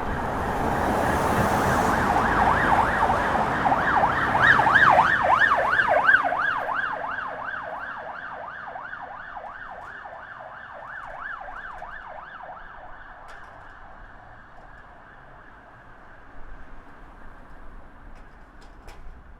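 Police car sirens yelping, rapid rising-and-falling sweeps about three or four a second, over road and engine rumble. They are loudest about five seconds in, then fade away as the vehicles move off.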